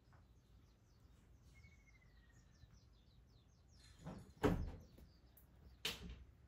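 Faint bird chirps and a thin, slightly falling whistle, then three short scuffing knocks from about four seconds in, the middle one the loudest.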